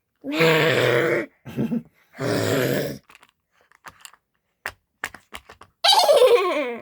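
Three loud groan-like voice sounds, each held for about a second. The last glides steadily down in pitch. A few light clicks fall between the second and third.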